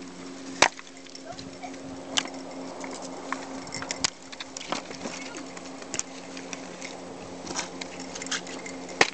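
Sharp knocks of a hand-held rock striking a freshly caught chinook salmon on the head to kill it, mixed with the fish flapping against the cobbles. The two loudest knocks come under a second in and near the end, with smaller knocks between.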